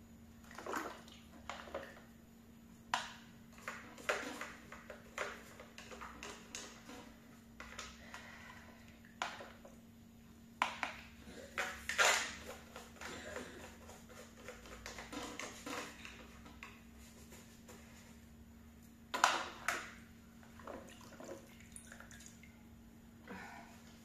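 A small cleaning tool scraping and brushing inside a robot vacuum's plastic brush housing: irregular scratchy strokes and clicks, with louder knocks about halfway through and again near the end.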